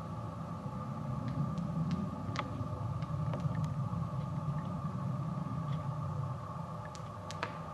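Giant sequoia trunk still burning inside its hollow: a steady low rushing sound with scattered sharp crackles and pops from the embers.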